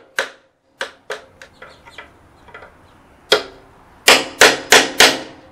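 Hammer driving nails into the wooden boards of a box shelf. There are a few sharp strikes, then a run of lighter taps, one hard blow, and four hard blows in quick succession near the end.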